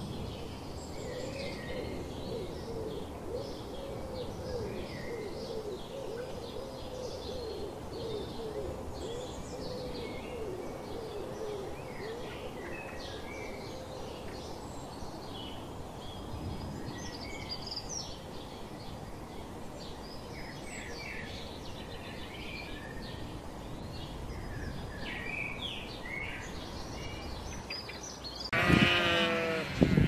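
Small birds chirping and calling over a steady outdoor background hiss. About two seconds before the end, a flock of sheep starts bleating loudly.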